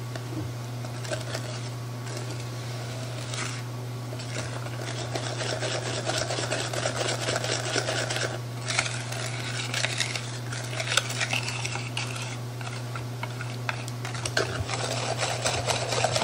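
Thin chocolate pie filling being stirred by hand in a bowl: quick, even strokes of the utensil scraping and clicking against the bowl, busier in the second half, over a steady low hum.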